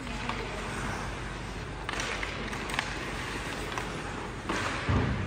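Ice hockey play on a rink: skate blades scraping on the ice and sticks clacking on the puck and ice, with a few sharp clicks and two longer scrapes. A loud low thump near the end.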